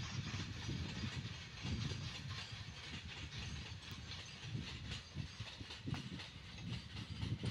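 Loaded freight wagons of a goods train rolling past on the track: a steady low rumble of steel wheels on the rails, with faint irregular clicks as they cross rail joints.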